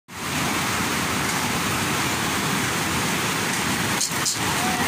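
Swollen floodwater rushing steadily past, a constant, even noise of fast-moving water.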